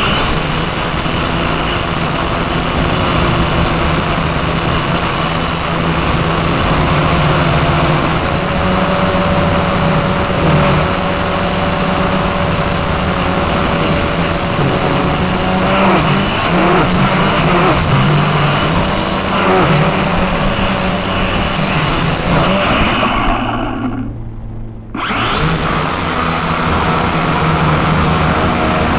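Syma X5SC-1 quadcopter's four small electric motors and propellers whining steadily, heard up close through the drone's own camera microphone. Near the end the whine dies away for about a second and then picks up again.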